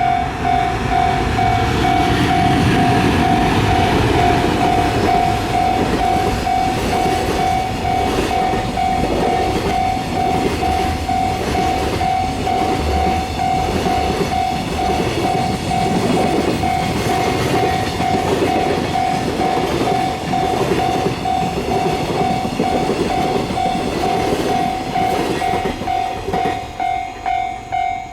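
Level-crossing alarm bell ringing about twice a second while a long train passes over the crossing, with its wheels clacking rhythmically on the rails. The train noise dies away about two seconds before the end while the bell keeps ringing.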